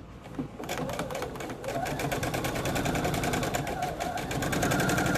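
Electric sewing machine stitching a seam that joins two pieces of quilt fabric. It starts up about half a second in, speeds up, and runs at a steady fast stitching rate from about two seconds in.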